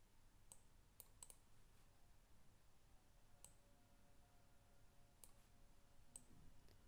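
About eight faint, scattered clicks of a computer mouse over near silence.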